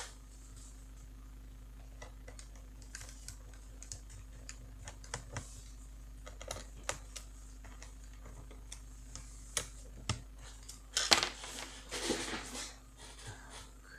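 Small screwdriver tightening screws in an open laptop: scattered light metallic clicks and ticks, with a louder clatter about eleven seconds in.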